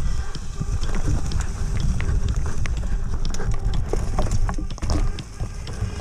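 Foes Mutz fat bike riding fast over dry-leaf-covered singletrack: a steady low rumble from the tyres and wind, with many quick clicks, crackles and rattles from leaves, twigs and the bike.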